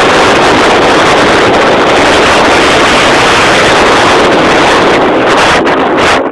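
Loud, steady rushing noise with no clear pitch, cutting off abruptly near the end.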